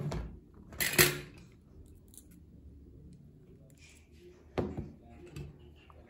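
Metal pliers clicking and snapping while thin stainless steel wire is bent into a hook: a click right at the start, the loudest snap just under a second in, and two lighter clicks near the end.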